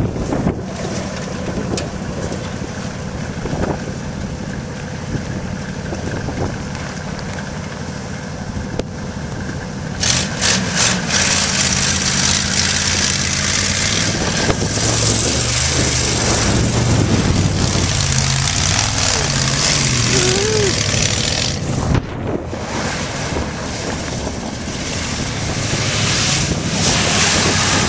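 Off-road vehicle engine running, with wind noise on the microphone. A loud hiss comes in about ten seconds in, and the engine is louder in the middle stretch.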